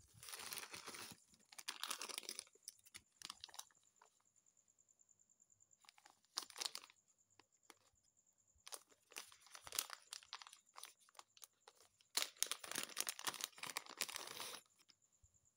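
Plastic packaging being crinkled and torn open by hand as a cable is unwrapped: four or five bursts of rustling and crackling with short pauses between, the longest near the start and near the end.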